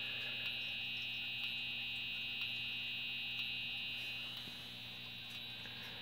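Strobe of a Wheelock NS4-2415 horn/strobe whining steadily and high-pitched as it charges and flashes, with a faint tick about once a second and a low hum underneath. The whine eases slightly about four seconds in.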